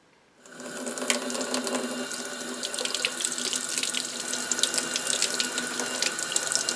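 Sink faucet running water over a wooden handle held in a clamp, splashing and spattering, with a steady tone under the rush. The water starts about half a second in. The handle is being rinsed of oxalic acid bleach.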